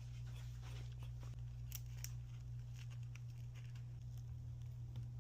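A steady low hum with scattered faint clicks and taps, like small objects being handled on a counter.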